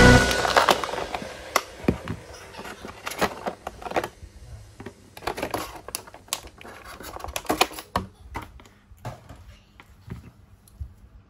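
Clear plastic blister tray crackling and clicking in irregular bursts as a figure and its parts are worked out of it by gloved hands. The clicks thin out toward the end.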